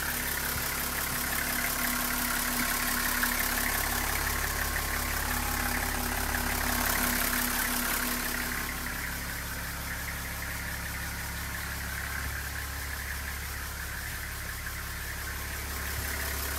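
Toyota 1HZ 4.2-litre inline-six diesel engine of a Coaster HZB50 bus idling steadily, heard inside the cabin through the open engine hatch. It is a little louder for the first eight seconds or so, then a little quieter.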